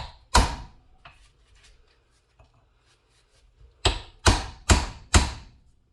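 Hammer taps on a tool set in the holes of a hydraulic cylinder's threaded gland, knocking it round to unscrew it: two strikes, a pause, then four strikes in quick succession. The gland is turning slowly under the blows.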